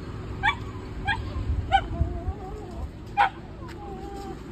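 A dog gives four short, high yelps with a thin whine in between. It is crying and whining from inside the van while monkeys are fed nearby.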